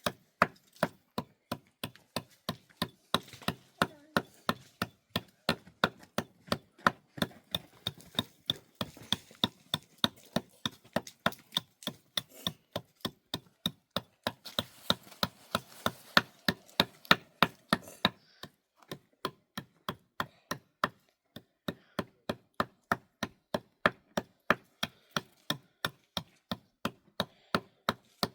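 A long, steady run of sharp knocks, about three a second, with a couple of brief pauses in the last third, like a tool striking wood again and again.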